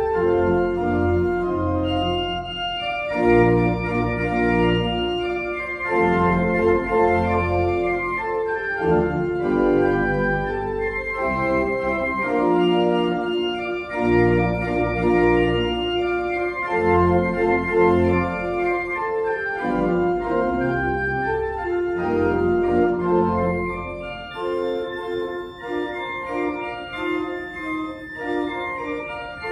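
Organ playing slow, sustained chords over a moving bass line, growing softer near the end.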